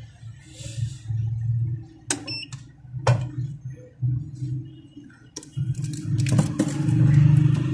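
Clicks and knocks of a phone battery and small parts being handled on a workbench, a cluster of them about six seconds in, over a low hum that grows louder near the end.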